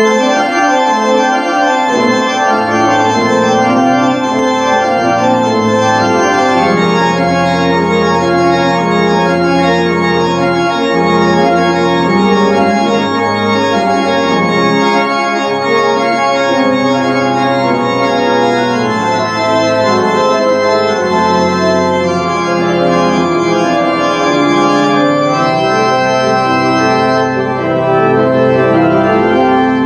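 Pipe organ playing a hymn in full, sustained chords that start abruptly and move from chord to chord every second or so, at a steady loud level.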